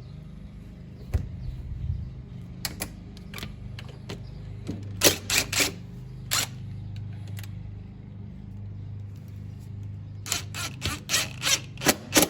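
Sharp clicks and knocks of screws and hardware being worked on the side of a garage door panel, in a cluster about five seconds in and a denser run near the end, over a steady low hum.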